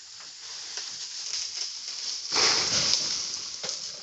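A cut rambutan branch dropping through the tree: a loud rustle and crash of leaves and twigs lasting about a second, starting a little past halfway.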